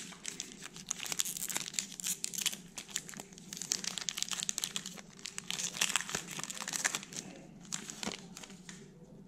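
Foil trading-card pack wrapper crinkling as it is handled and torn open, in dense irregular crackles that die down near the end.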